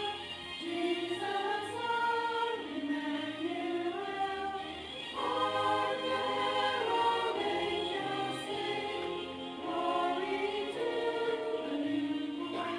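Church choir singing a Christmas song, many voices in harmony holding sustained notes.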